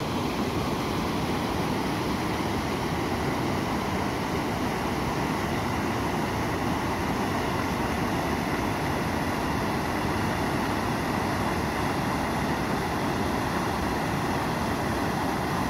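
Floodwater rushing over a concrete dam spillway: a steady, unbroken rush of churning white water.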